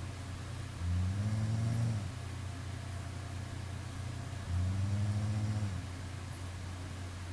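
Snoring: two low-pitched snores, each about a second long and a few seconds apart, each rising slightly in pitch and falling away, over a steady low hum.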